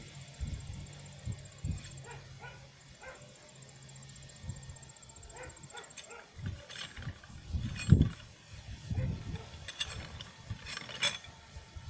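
Wooden sticks and stakes of a decoy stand knocking and clicking as they are pulled apart, a handful of scattered knocks with one heavier thump about eight seconds in. A low steady hum runs under the first few seconds and then fades out.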